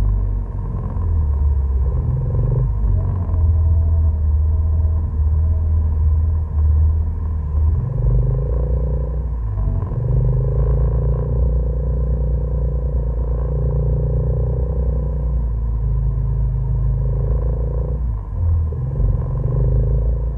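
Off-road vehicle engine running on board, its low rumble rising and falling in steps as the throttle is worked over uneven dirt trail.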